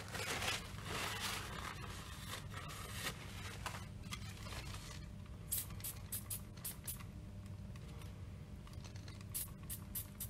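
A cloth rubbing and scraping on a metal shaft-seal ring as gloved hands wipe it, followed from about halfway through by a run of light, sharp ticks as the part is handled.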